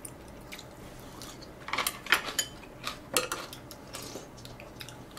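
Chopsticks and spoons clinking against ceramic bowls and plates while people eat: scattered light clicks, bunched about two seconds in and again about three seconds in.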